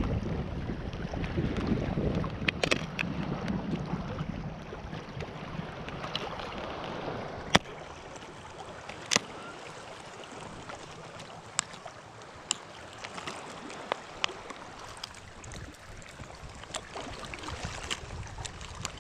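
Wind rushing on the microphone over lapping water, easing after about seven seconds, with scattered sharp clicks and ticks through the rest.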